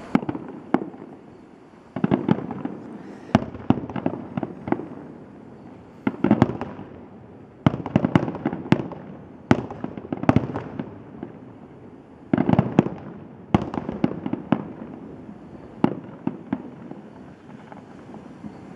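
Aerial fireworks shells bursting: sharp bangs in irregular volleys of several at a time, each followed by a short rumbling echo, with brief lulls between the volleys.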